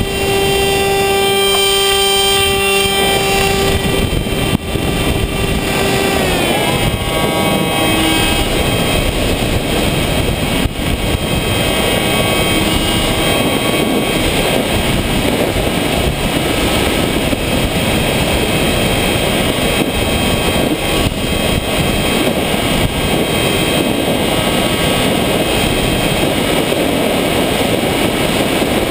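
RC FPV plane's motor and propeller, heard from the camera on board, whining at a steady pitch, then sliding down in pitch about six seconds in as the motor slows. After that, mostly wind rushing over the airframe, with the motor faint underneath.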